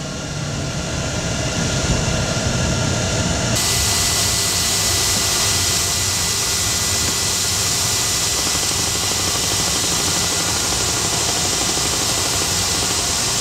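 Twin turbofan engines of a Coast Guard HU-25C Falcon jet running steadily, heard inside the cockpit as an even rush with a thin high whine. The high hiss steps up abruptly about three and a half seconds in.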